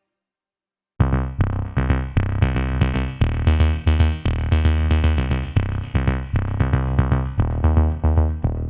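Electronic background music with synthesizer and a drum-machine beat, starting suddenly about a second in after a moment of silence.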